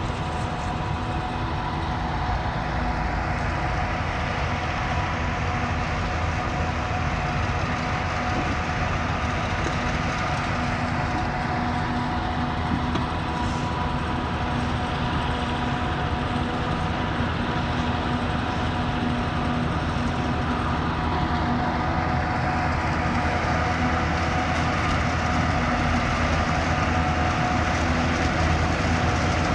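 Heavy silage-harvest machinery running steadily: the engines of a forage harvester and a dumper truck chopping and hauling maize. It makes a constant drone with several steady tones over a low rumble, growing a little louder toward the end.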